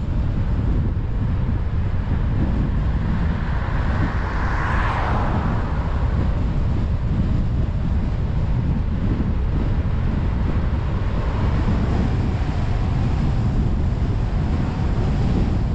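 Steady low rumble of a car driving on the highway, with wind buffeting the microphone. A brief swell of rushing noise rises and falls about five seconds in.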